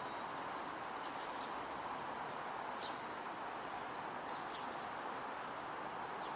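A few faint, short, high chirps from Eurasian tree sparrows over a steady hiss of background noise.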